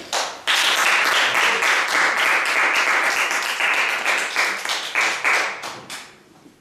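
Applause: a few single claps, then many hands clapping together from about half a second in, dying away about a second before the end, greeting a correct quiz answer.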